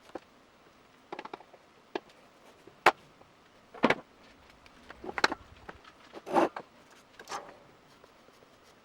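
Irregular sharp clicks, taps and short clatters of hard plastic parts and tools being handled on a workbench, with the sharpest click about three seconds in.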